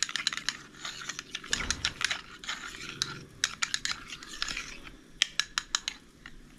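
A metal spoon stirring thick mayonnaise sauce in a small bowl: irregular light clicks of the spoon against the bowl with soft scraping, dying down near the end.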